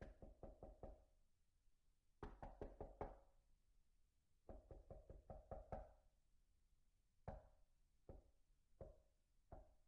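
Faint hollow knocking, in quick runs of four or five knocks, then single knocks about every three-quarters of a second.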